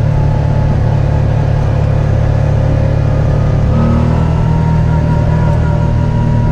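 ATV engine running steadily through the ride, its note changing about four seconds in.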